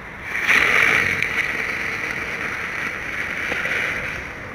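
Weco 'dicke Brummer' ground spinners going off inside a chips can: a loud hissing, buzzing rush that starts suddenly a fraction of a second in and dies away slowly over about four seconds.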